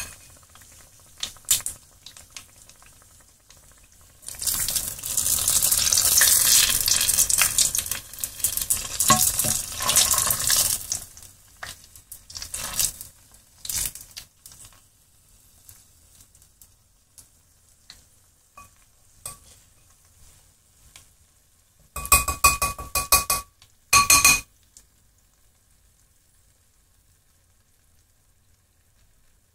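Battered cookie deep-frying in a saucepan of hot oil: sizzling and bubbling, with a metal utensil stirring and knocking against the pan, loudest from about four to eleven seconds in. A couple of short ringing clatters come around 22 seconds in, then only faint bubbling is left near the end.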